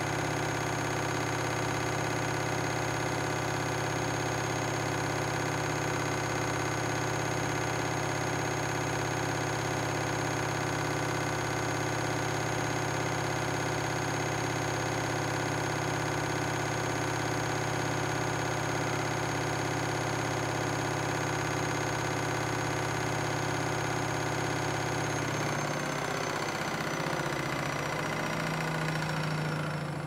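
Front-loading washing machine on a 1200 spin cycle: the drum spinning at high speed with a steady motor whine and hum. About 25 seconds in, the spin starts to slow and the whine falls in pitch as the drum winds down.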